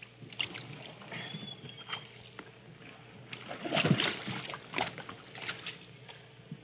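Wooden paddles dipping and splashing as a birchbark canoe is pushed off and paddled away, with water sloshing against its hull; the biggest splash comes about four seconds in.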